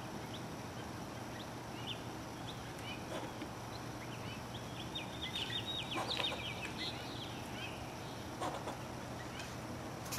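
Squirrel scolding from a tree: scattered short, high chirps, with a fast run of about ten sharp chattering calls about halfway through.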